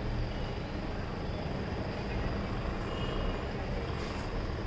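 Steady low rumble and hiss of background noise, with no distinct events.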